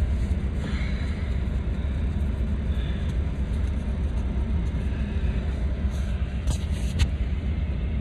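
Semi truck's diesel engine idling, a steady low rumble heard from inside the cab, with two light clicks near the end.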